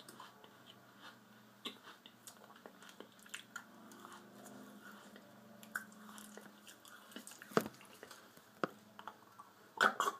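Mouth noises of someone chewing and working a mouthful of dry Kool-Aid drink powder: irregular wet smacks and small clicks, with a few sharper, louder smacks in the last few seconds.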